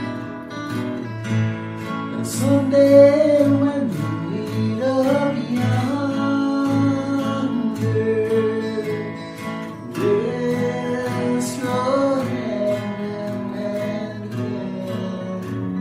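Acoustic guitar strummed and picked in a slow country ballad, with a man singing over it from about two seconds in. A slight delay effect is on the mix.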